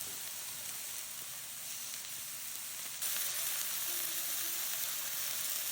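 Chicken skewers sizzling on an oiled electric grill, a steady hiss that grows louder about three seconds in.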